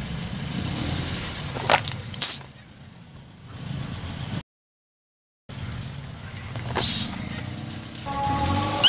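A car's low engine rumble as its tyre creeps over a plastic ketchup pouch on concrete, with a few sharp clicks and crackles. The sound drops out completely for about a second in the middle. A short rising squeak near the end is the loudest sound.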